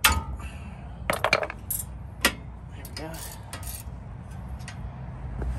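Hammer blows on a wrench fitted to a tight 17 mm caliper bracket bolt, knocking it loose. A string of sharp metallic clanks, the loudest at the start and about two seconds in.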